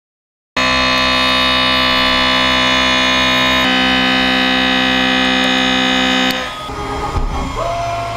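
Milling cutter of a 5-axis mill-turn CNC machine cutting a steel crankshaft: a loud, steady whine made of many tones, starting about half a second in. Its tones shift about halfway through, and it stops after about six seconds, leaving quieter machine noises and a brief whine near the end.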